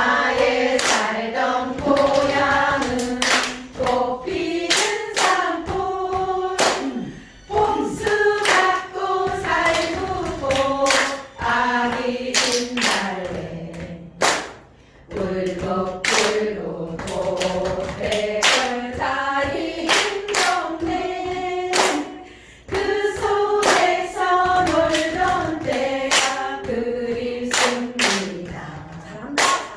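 Voices singing a song together in unison while hands clap and slap the body in a steady beat: body percussion accompanying the singing.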